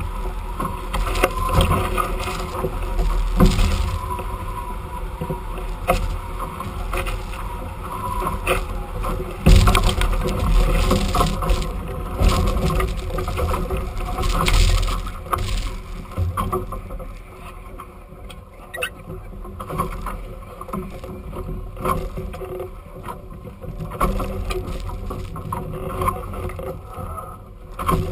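Water rushing past and slapping against a sailing catamaran's hulls at speed through choppy water. There are loud surges of splashing about nine and a half seconds in and again around fourteen seconds, when a crew member is dragged through the water beside the hull, and it goes quieter in the last third.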